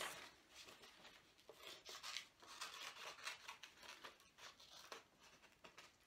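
Scissors cutting through paper: a run of faint, irregular snips with paper rustling between them.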